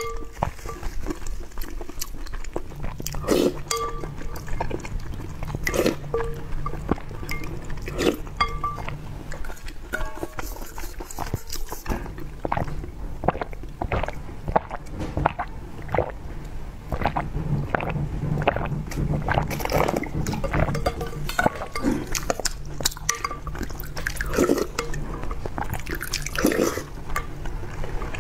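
Close-up mouth sounds of milk tea with tapioca pearls being sucked up through a wide bubble-tea straw, with wet chewing of the chewy pearls and many small liquid clicks and slurps. A wooden spoon stirs and scrapes the milk tea in a glass bowl.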